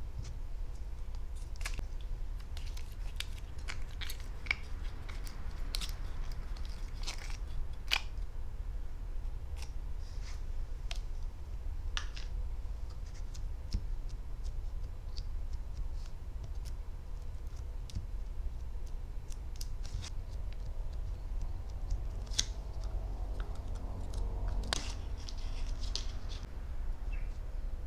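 Hands handling butter slime, with scattered sharp sticky clicks and crackles, over a steady low hum.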